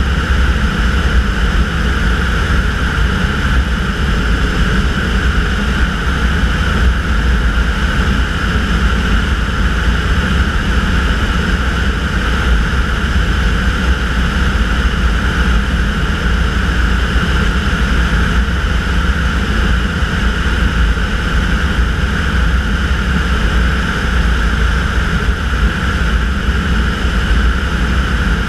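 Tanarg air trike's engine and pusher propeller running steadily in cruise flight, with wind rushing over the wing-mounted microphone.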